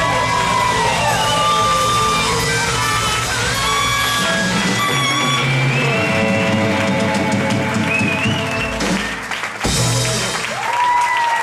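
Live blues band playing a funk instrumental: electric guitar, drum kit, saxophone and amplified harmonica, with a sharp break in the groove about nine seconds in.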